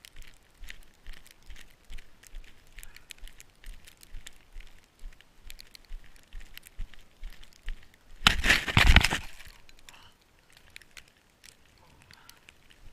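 Footsteps crunching through deep snow at a steady pace, about two to three steps a second. About eight seconds in, a loud rush of noise lasts about a second.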